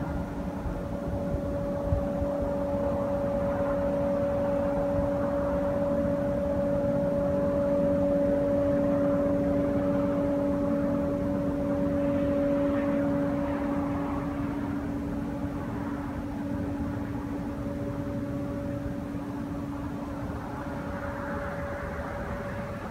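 Steady droning hum in the sky of two held tones over a low rumble, swelling slowly and then easing, with the higher tone fading out for a few seconds near the end. Its source is unexplained: one of the reported 'strange sounds in the sky'.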